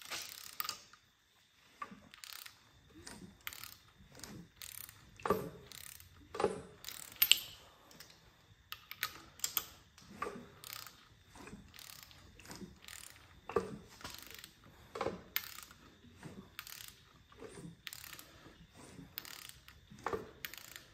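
Socket ratchet clicking in short, irregular runs with scattered knocks as a small-block Chevy V8 is turned over by hand. A rod or rod bolt is catching on the dented oil pan.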